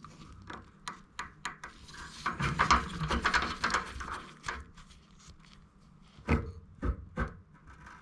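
Water rushing and spattering out of a loosened nut on a radiator valve as the heating pipework drains, with irregular small clicks. A few sharp knocks follow near the end.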